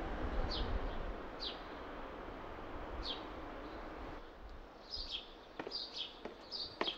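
Outdoor ambience with small birds chirping: short, downward-sliding chirps, a few spaced out at first and then coming more quickly from about five seconds in, over a faint steady rush of background noise that eases about four seconds in.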